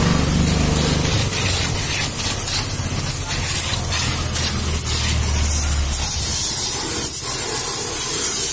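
High-pressure water jet from a pressure-washer spray gun hissing steadily as it blasts a car's wheel and tyre. A low hum sits under the spray and drops out about six seconds in.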